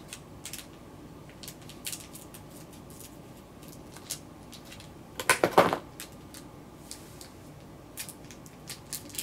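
Small scissors snipping open a tiny plastic candy wrapper: scattered light clicks and crinkles, with a louder burst of wrapper noise a little past halfway.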